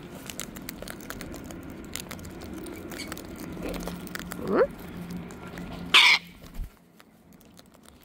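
Sulphur-crested cockatoos feeding at a seed tray: a steady patter of small clicks as they crack and husk sunflower seeds. A short rising call comes about four and a half seconds in, and a brief loud squawk about six seconds in, after which it goes much quieter.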